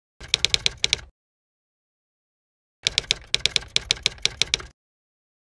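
Typewriter key-strike sound effect: a quick run of about six sharp clacks, a pause of under two seconds, then a second run of about a dozen, typing out an on-screen title.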